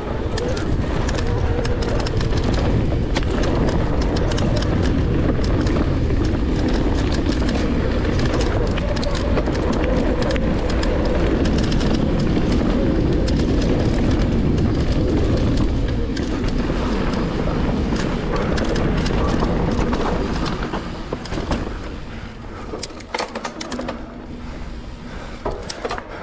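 Wind buffeting the microphone and knobbly tyres rolling over sandy dirt as a mountain bike is ridden at speed. About 20 seconds in the noise drops, leaving the tyres and scattered clicks and rattles from the bike.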